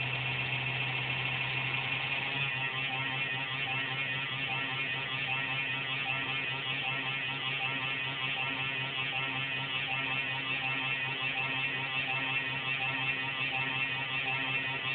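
Desktop computer making an uneven buzz that, about two seconds in, shifts to a pulsating whirr. The owner thinks it is the fan but is not sure.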